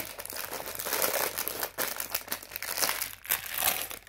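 Clear plastic bag of Lego pieces crinkling and rustling irregularly as it is handled.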